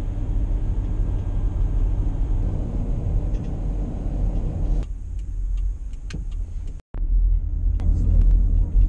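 Car on the move: a steady low road and engine rumble, with an abrupt change about five seconds in and a brief gap near seven seconds.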